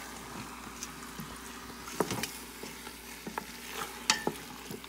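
Wooden spatula stirring raw chicken drumsticks through masala in a stainless steel Instant Pot insert, knocking and scraping against the pot, over a steady low sizzle from the hot pan. Sharp knocks come about two seconds in and again, loudest, near four seconds.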